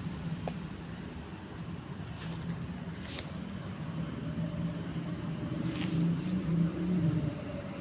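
Low rumble of distant road traffic, with an engine hum that builds up and gets louder in the second half.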